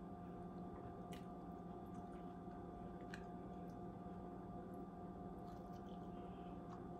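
Quiet kitchen room tone with a faint steady hum, a couple of soft clicks, and faint squishy sounds of fingers handling and biting into a piece of cooked steak.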